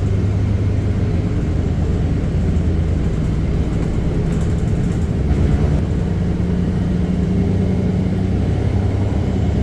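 Bus engine and road noise heard from inside the moving bus: a steady low drone.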